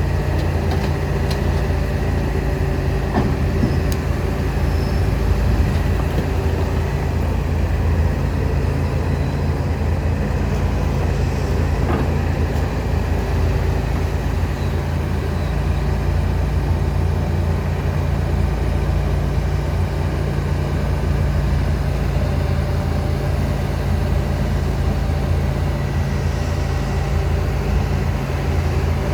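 John Deere 245G LC excavator's diesel engine running steadily with a deep, even drone, with a couple of faint knocks over it.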